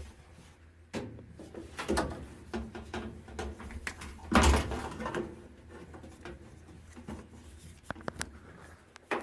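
Handling noise: scattered knocks and clicks of parts being moved about, with one louder rasping burst lasting about half a second, about four and a half seconds in.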